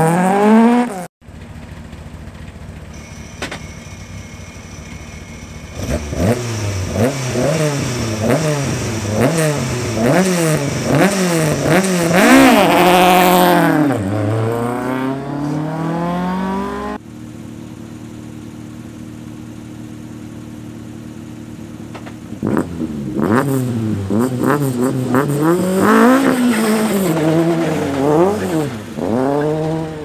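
Rally cars launching from a start line, one after the other. A car idles, then revs hard and accelerates away from about six seconds in, its engine pitch climbing and dropping with each gear change before it fades away. After a cut, another car idles and then launches the same way near the end.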